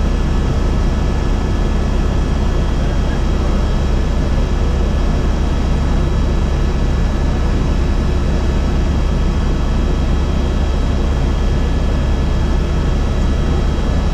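Helicopter in flight: a loud, steady drone of engine and rotor, with a few faint steady high whines over it.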